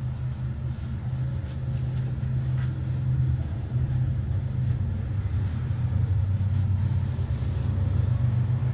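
A steady low droning hum, the loudest thing throughout, like a motor or machine running in the shop. Over it come faint scratchy rubbing sounds as a steel knife blade is sanded and wiped by hand.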